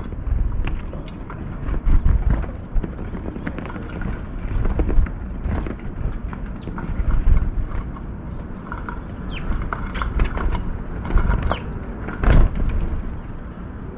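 Wind buffeting the microphone with an uneven low rumble, with short small-bird chirps and scattered light ticks.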